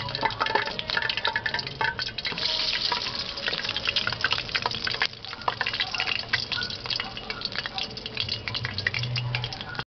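Oil sizzling and crackling in a wok as a banana peel burger patty fries, with a wooden slotted spatula scraping and stirring in the pan. Cuts off suddenly near the end.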